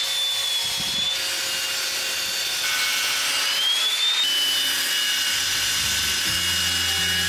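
Table saw running and ripping a strip of wood, a steady high whine that shifts in pitch a few times as the wood is fed through.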